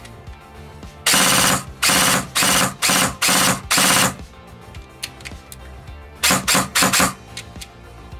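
Airsoft electric gun's gearbox, controlled by a GATE Titan MOSFET, cycling under the trigger: five quick strings of shots of about half a second each, then a run of short single and two-shot bursts. A quieter music bed plays underneath.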